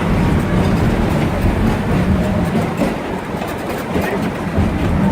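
Steam-hauled excursion train running on the track: a steady rumble of the wheels on the rails, with light clatter.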